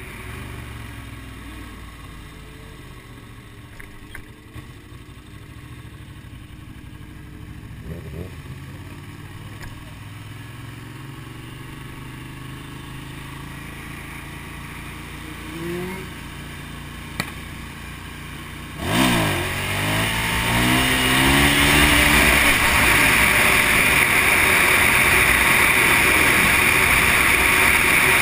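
Motorcycle engine heard from the bike, running low and steady while cruising, with a brief rev past the middle. About two-thirds of the way in the throttle opens hard, the engine pitch climbs, and loud wind rush and engine noise at speed follow.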